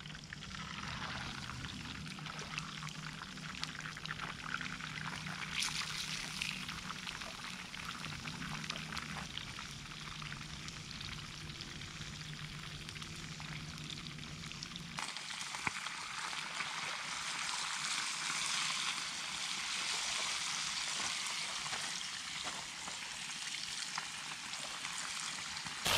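Bluegill frying in hot oil in a skillet over a wood fire: a steady sizzle and crackle, turning louder and brighter about halfway through.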